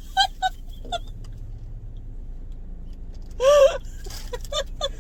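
Short, high-pitched vocal sounds, with one louder squeal-like cry about three and a half seconds in, over a steady low hum.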